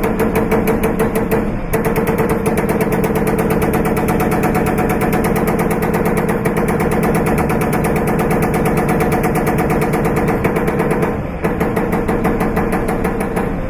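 Metal stamping and cutting machine punching sheet metal in a rapid, even rattle of strokes over a steady motor hum, with short breaks about 2 and 11 seconds in.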